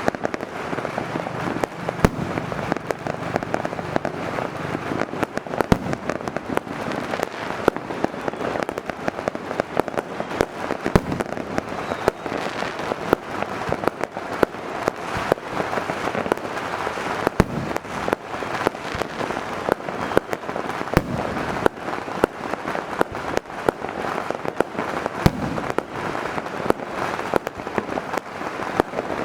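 Dense, continuous fireworks barrage: many sharp bangs a second over a steady crackling din.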